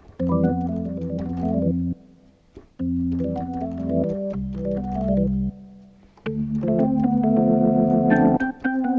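Yamaha MX49 keyboard playing an organ sound: chords in short phrases with brief gaps, a long held chord about six seconds in, then quick short notes near the end.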